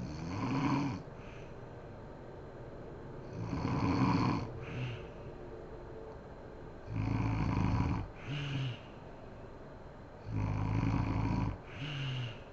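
A woman snoring in her sleep: four snores about three seconds apart, the later two each followed by a shorter second sound.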